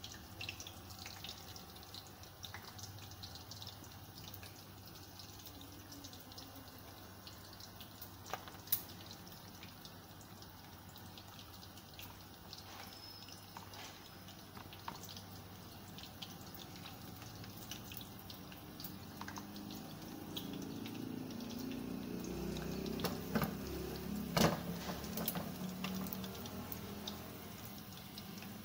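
Batter-coated potato slices (aloo pakora) deep-frying in hot oil: a steady sizzle with scattered sharp crackles and pops. The frying grows louder for a few seconds about two-thirds of the way through, with one sharp click near the end.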